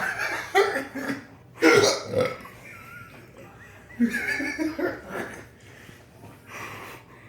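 A man's repeated burps and hiccups, set off by a drop of pure capsaicin extract on the tongue: several sharp bursts, the loudest about two seconds in.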